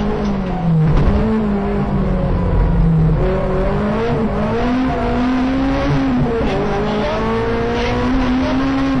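Honda Civic Type R rally car's four-cylinder engine heard from inside the cabin, running hard at high revs; its pitch dips about a second in, climbs again from about three seconds, and drops briefly at gear changes, over steady road noise.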